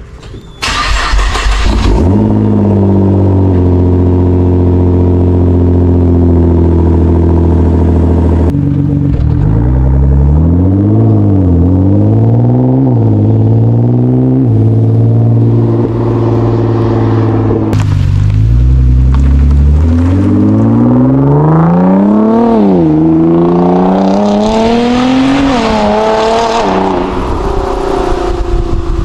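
Nissan GT-R R35's tuned twin-turbo V6 starting up about half a second in and settling into a steady idle, then blipped through several quick revs. From about 18 s it runs under way, its pitch climbing and falling repeatedly as it is revved and driven.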